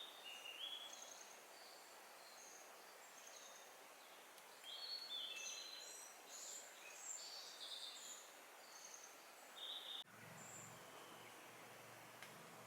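Birds singing and calling faintly, many short high notes overlapping in quick succession. About ten seconds in, the sound cuts abruptly and a low steady hum comes in under fewer, fainter notes.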